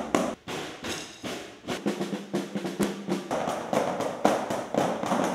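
A student percussion group drumming with sticks on snare drums, a fast run of strikes that grows denser and louder about three seconds in.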